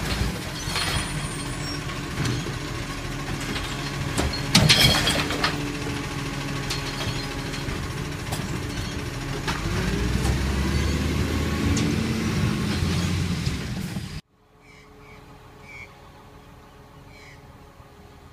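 Side-loading recycling truck's diesel engine running at the kerb, with a loud hiss of air brakes about four and a half seconds in; about ten seconds in the engine revs up as the truck pulls forward. About fourteen seconds in the sound cuts off suddenly to a quiet street, with a distant truck engine and a few faint chirps.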